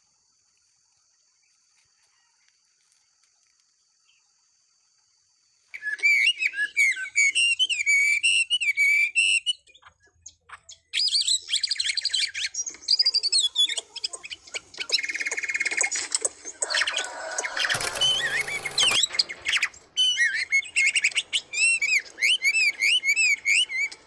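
Near silence for about the first six seconds, then songbirds singing: fast, looping whistled phrases repeated over and over, several voices overlapping. A short harsh burst comes about three-quarters of the way through.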